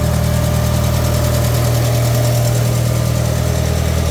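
Gasoline engine of a 1970s International skid steer idling steadily, its ignition newly converted from points to electronic with the timing freshly set.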